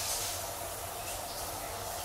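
Running shower: water spraying steadily from a handheld shower head, an even hiss.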